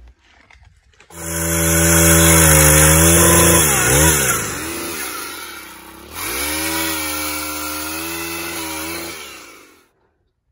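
Stihl pole saw running and cutting a branch. Its pitch sags about four seconds in, picks up again at about six seconds, and it stops shortly before the end.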